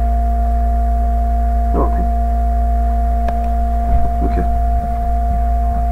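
A loud, steady hum of several constant tones over a deep low drone, with faint brief sounds of a distant voice about two and four seconds in.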